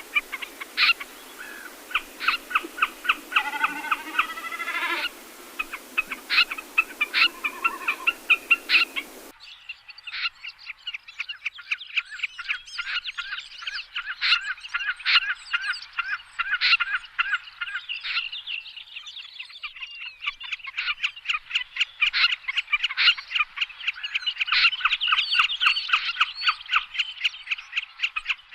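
Recorded common snipe calls played as a trapping lure: rapid series of short, sharp call notes, repeated densely. About nine seconds in, the recording cuts abruptly to a denser, almost continuous chatter without background hiss.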